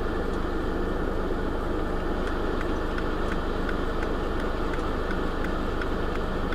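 Motorhome engine and road noise heard from inside the cab while driving: a steady low hum under an even rush, with faint light ticks now and then.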